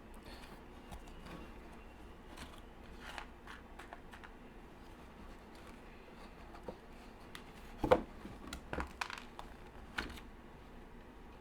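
Light handling noises of food packaging and utensils: scattered rustles and clicks, with a sharper clatter about eight seconds in and another click near ten seconds.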